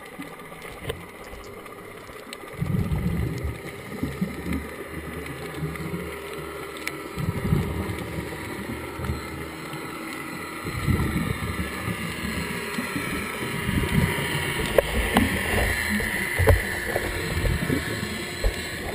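A scuba diver's exhaled bubbles from the regulator, heard underwater: low bubbling rumbles that come in bursts every few seconds with each breath, over a steady underwater hiss.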